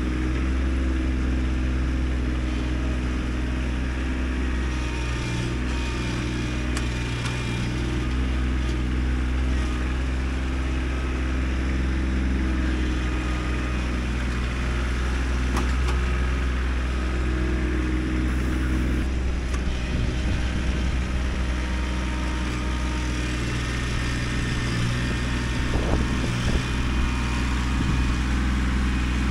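Kubota tractor's diesel engine running steadily under working load while pushing dirt, its pitch shifting slightly now and then, with a few metallic clanks.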